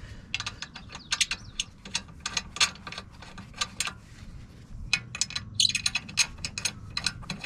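Ratchet wrench clicking in short, irregular runs of sharp metallic clicks as it is worked on a car's CV axle nut.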